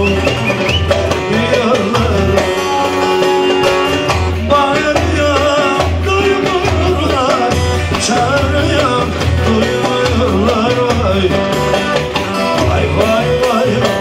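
Live Turkish folk music: a bağlama (saz) plays a wavering, ornamented melody over a darbuka and drum rhythm with a steady bass beat.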